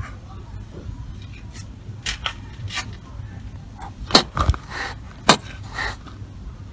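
Angry kitten hissing and spitting in a run of short, sharp bursts, the loudest ones a little past the middle: a defensive warning at the person.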